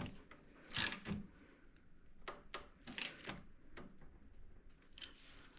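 Hand wrench working the steering shaft's clamp bolt: a few scattered light metallic clicks and knocks, with a small cluster in the middle, as the bolt is tightened.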